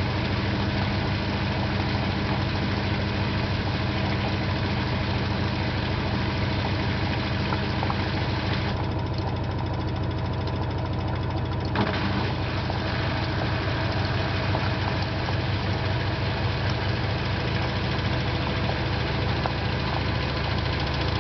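LG 12B8ND washing machine on its spin cycle: a steady hum from the spinning drum with occasional sharp clicks. The clicking is a fault noise that comes from the lower right of the machine and appears with either a light or a heavy load, but not when the drum spins empty.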